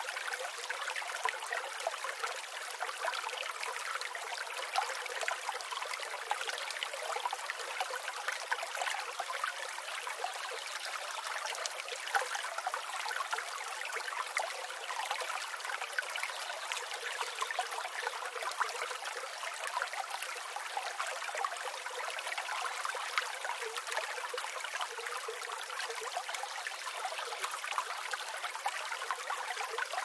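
A small stream flowing over rocks: a steady wash of running water dotted with many small, quick splashes, with no deep rumble.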